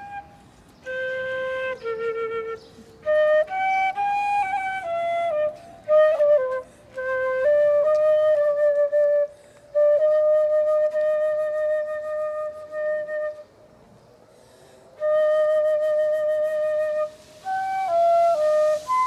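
Solo concert flute playing a slow melody in short phrases separated by brief pauses, with a long held note in the middle.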